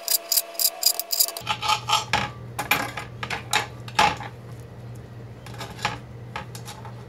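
Kitchen knife dicing a tomato on a cutting board: a quick run of sharp taps, about six a second. Then, about a second and a half in, scattered clicks and knocks as the diced tomato is gathered off the board and dropped into a bowl.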